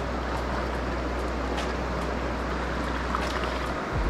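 Steady rushing of a shallow river running over stones, with a brief low thump near the end.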